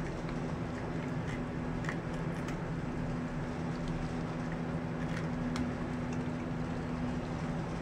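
Shiba Inu gnawing on a raw carrot: a few faint, scattered crunches over a steady low hum.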